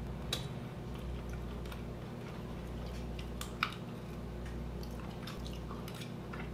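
Someone eating steamed clams and mussels with chopsticks: scattered light clicks of shells and chopsticks with chewing and sucking sounds, and one sharper click about three and a half seconds in.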